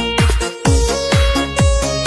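Electronic keyboard dance remix: a four-on-the-floor kick drum at about two beats a second under a sustained synth melody line.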